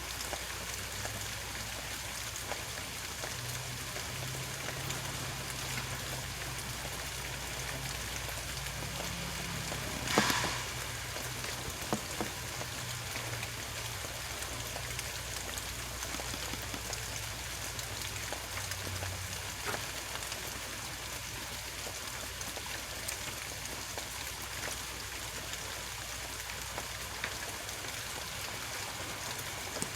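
Truck-yard noise: a low truck-engine drone under a steady hiss. One sharp bang comes about ten seconds in, and a few fainter knocks follow later.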